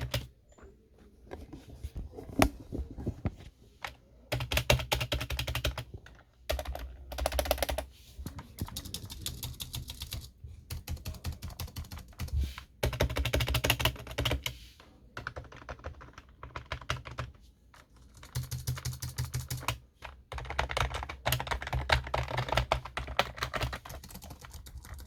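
Typing on a rubber-dome computer keyboard, either a scissor-switch or a membrane board: quick runs of soft keystrokes lasting a second or two, broken by short pauses.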